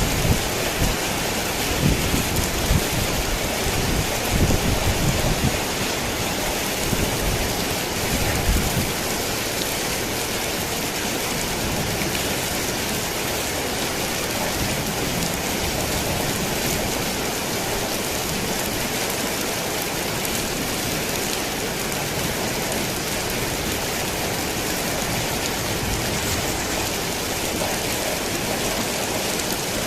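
Steady rain falling on a tin roof, with low thunder rumbling through the first nine seconds or so and then dying away.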